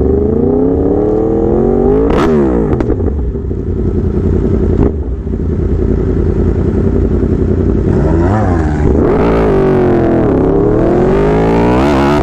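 Yamaha R1 inline-four sport bike engine running loud under load, its pitch climbing, falling sharply about two seconds in, holding fairly steady, then dipping and climbing again near the end.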